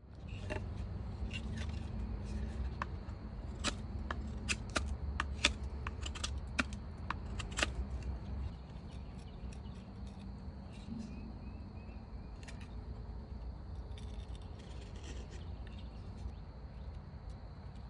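A knife cutting into a wooden hand-drill hearth board, giving a quick run of sharp clicks and scrapes in the first half, then only a few, over a steady low rumble.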